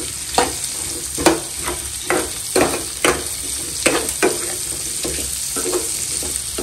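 Chopped onion sizzling in hot oil in a kadhai while being stirred, the utensil scraping the pan in about ten irregular strokes that grow lighter in the second half.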